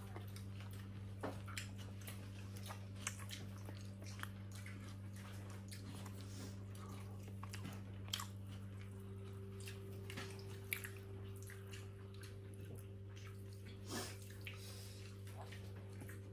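A steady low hum, with scattered light clinks and taps of cutlery and hands on china plates and some chewing as people eat at the table.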